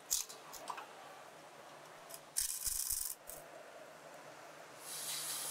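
A handheld power wrench runs briefly on a nut, a hissing, rattling burst lasting under a second about two and a half seconds in. Short clicks and rattles of parts being handled come before and after it.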